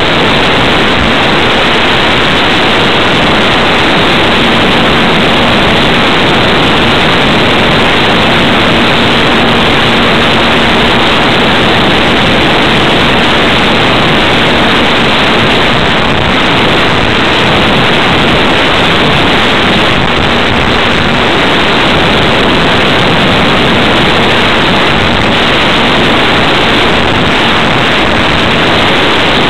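Loud, steady wind rush over the onboard camera's microphone as a ParkZone T-28 Trojan radio-control plane flies, with a faint steady hum from its electric motor and propeller under the noise.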